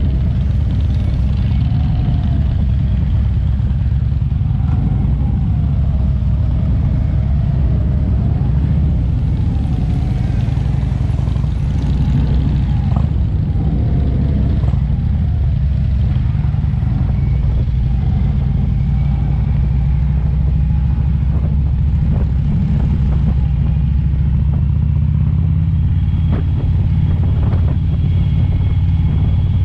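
Motorcycle engines running steadily as a group of touring motorcycles rides slowly in procession, a low, even rumble heard from one of the moving bikes.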